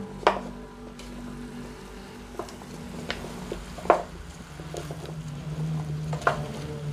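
Wooden spoon stirring chunks of potato and carrot in a frying pan, with scattered knocks and clacks as the spoon and vegetables hit the pan, over a steady low hum.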